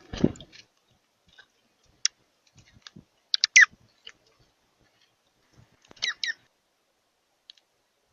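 Short, sharp bird calls, each a quick chirp sliding downward in pitch, a cluster about halfway through and a pair near the end, among scattered light clicks and taps. A low thump at the very start.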